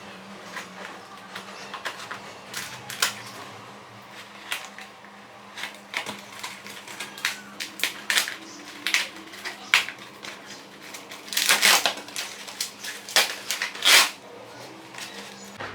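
Parcel packaging being handled and unwrapped: irregular crinkling, rustling and small clicks, with two louder, longer rustles near the end.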